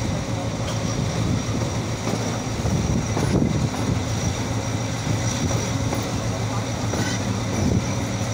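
Pakistan Railways HGMU-30 diesel-electric locomotive hauling a passenger train at speed, heard from the coach just behind it: a steady low engine drone over the running noise of wheels on rail.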